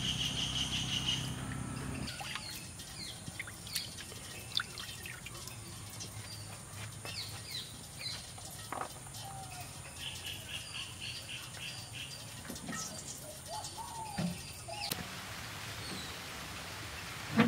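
Birds chirping and calling, many short chirps and quick whistled glides, with a fast pulsing trill twice, near the start and about ten seconds in. A few soft knocks come in between.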